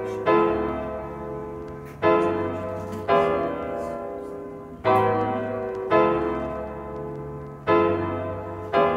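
Background music: a keyboard playing held chords, struck every one to two seconds and fading between, over a low bass.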